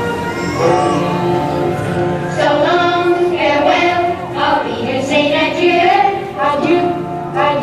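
Recorded music with a singing voice, played loud through a hall's sound system; held chords give way to sung melody about two seconds in.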